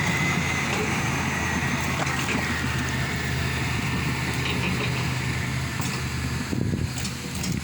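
A motor vehicle's engine running steadily, a low hum with a thin high whine over it.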